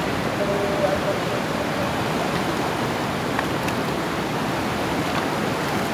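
Fast-flowing river rapids rushing over rocks: a steady, even wash of water noise.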